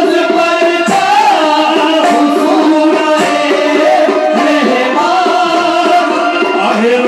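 Live qawwali (a manqabat): a male lead voice singing over sustained harmonium chords, sung by the group's lead singer at the harmonium.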